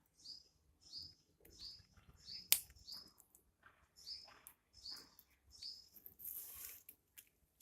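Baby parrot chirping: a string of short, high calls repeated roughly every half second to a second. A sharp click about two and a half seconds in, and a brief rustle near the end.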